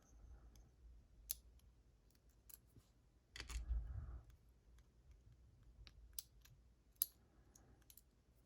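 Faint, scattered metallic clicks and taps of a gutted pin-tumbler lock's small parts and tools being handled, with a short patch of louder handling noise about three and a half seconds in.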